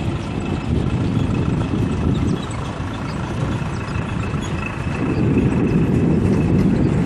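Steady rumble of distant engines with a faint high whine, growing louder about five seconds in.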